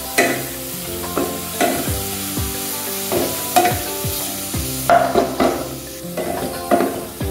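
Chopped carrot, green capsicum and onion sizzling in hot oil in an aluminium frying pan, stirred and scraped with a wooden spatula, over soft background music.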